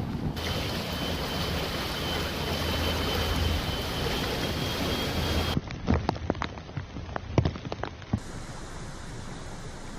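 Hurricane wind and heavy rain making a dense, steady rushing noise with a faint high whistle through it. About halfway through, the sound cuts to a stretch of sharp knocks and cracks, then to a quieter steady hiss of wind and rain.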